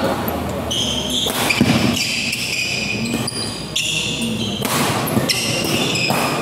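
Badminton doubles rally: rackets striking the shuttlecock several times, with short high squeaks of shoes on the court floor between the hits.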